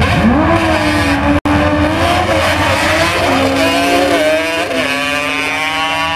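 Yamaha Banshee two-stroke twin quad launching off the drag-strip start line: the engine revs sharply up, holds high, and its pitch drops twice as it shifts up through the gears. The sound cuts out for an instant about a second and a half in.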